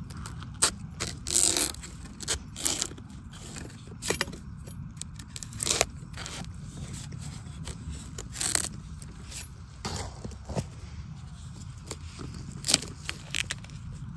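A long knife blade cutting and scraping into the base of a wild bamboo shoot in soil and leaf litter: irregular sharp cuts and short scrapes, a few of them longer, over a steady low rumble.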